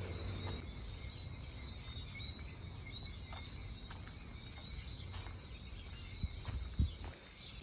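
Quiet trailside ambience: a steady high-pitched insect chirring, with a low rumble underneath, a few faint taps and a soft thump near the end.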